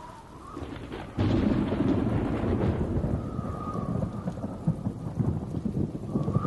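Thunderstorm: a sudden loud clap of thunder about a second in, then a long rolling rumble over the hiss of rain.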